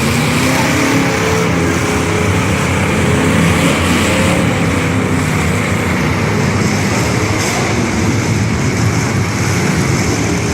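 Demolition derby cars' engines running and revving together: a loud, steady din with several engine notes wavering up and down.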